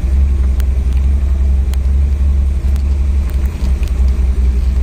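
Motor of a wooden river boat running steadily while under way, a heavy low rumble with a few sharp clicks.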